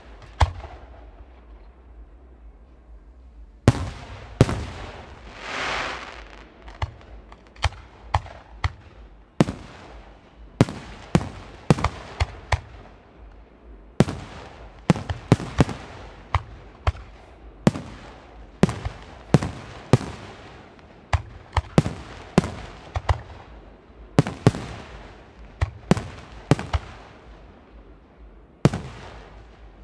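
Aerial fireworks shells bursting: a steady run of sharp bangs with echoing tails, one to two a second, after a short lull in the first few seconds.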